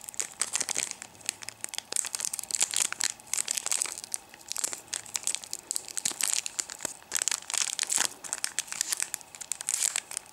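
Foil Yu-Gi-Oh! booster pack wrapper crinkling and crackling in irregular bursts as fingers pick and tug at its crimped seam, trying to tear it open; the seam does not give.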